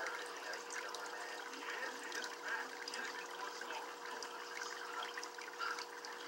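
Small trickling and bubbling water sounds over a steady faint hum, with many little ticks and pops.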